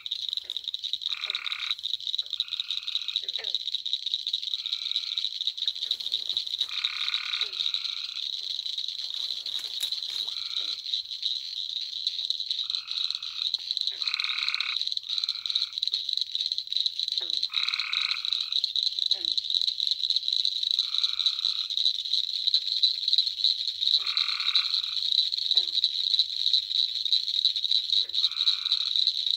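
A chorus of pond frogs: short trilled calls, each about half a second long, repeated every second or two over a steady high-pitched trill.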